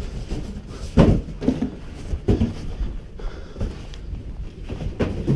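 Cardboard boxes being handled and set down to build a fort, with a few dull thumps, about a second in, after two seconds and near the end, over shuffling and rustling.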